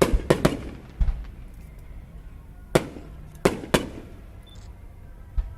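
Aerial fireworks bursting: irregular sharp bangs, three in quick succession at the start, another about a second in, then single and paired bursts around three seconds and one more near the end, each with a short echoing tail.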